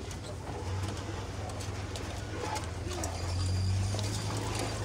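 Toyota 4x4 driving slowly along a rough bush trail, heard from inside the cab. A low, steady engine drone swells about three seconds in, with a few light knocks and scrapes.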